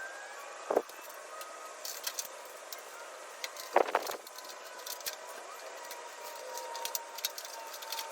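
Light metal clinks and clicks of tool-cart parts being handled during assembly, with two louder knocks, one about a second in and one near four seconds in.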